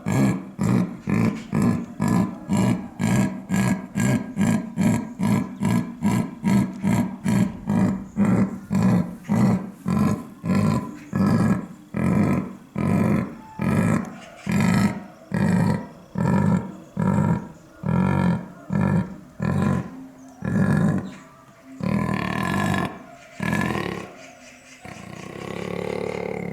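A big cat's roaring series: a long run of deep, evenly spaced grunts, about two a second at first and slowing towards one a second, ending with a few longer drawn-out calls near the end.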